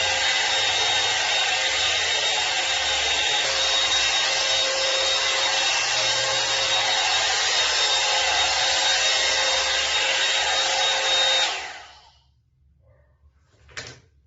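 One-step hot air brush dryer-volumizer blowing steadily, with a whine over the rush of air. It is switched off about eleven seconds in and winds down quickly, followed by a single click.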